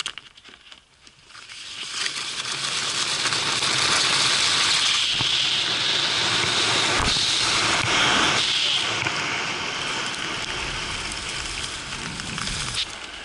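Wind rushing over a helmet-mounted GoPro and skis hissing down the iced inrun tracks of a ski-jump hill. The rush builds over the first couple of seconds, stays loud through the ride and jump with a single knock about seven seconds in, and eases off as the skis run out on the flat snow.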